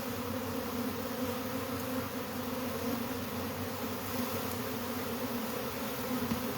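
A mass of honeybees buzzing in a steady, even hum around a colony that is being taken apart and its comb cut out.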